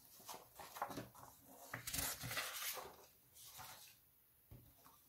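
Loose sheets of printed paper rustling and crinkling as they are handled and turned over, in a few short crackles with a longer rustle about two seconds in.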